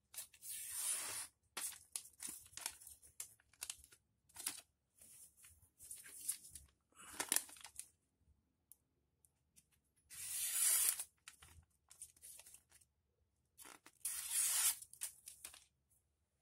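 A sharp steel knife slicing through a paper calendar sheet in about eight separate cutting strokes, each a short papery rasp, the longest near the start and twice in the second half, with the paper rustling between cuts. The blade cuts cleanly, a test of its sharpness.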